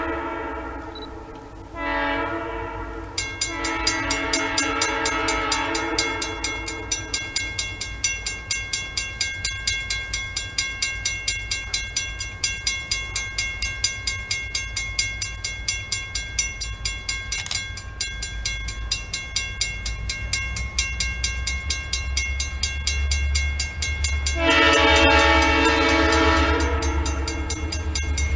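Diesel locomotive horn sounding for a grade crossing: blasts that end about three seconds in, then a crossing bell ringing steadily about twice a second over a low rumble of the approaching train, and another long horn blast near the end.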